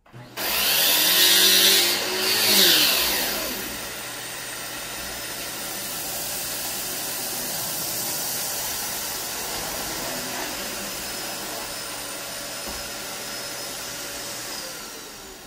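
Dyson DC21 canister vacuum switched on and running, its motorised floor head sucking up fine debris from a hard floor with the brush roll turned off. It is loudest for the first few seconds, then runs steadily, and near the end it winds down with a falling whine.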